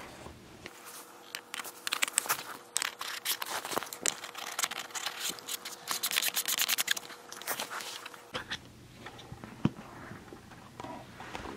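Close handling noise on the camera as a Zeikos 0.34x fisheye adapter is screwed onto its lens: a dense run of scrapes and clicks from the threads and from fingers on the camera body. It dies down about eight seconds in.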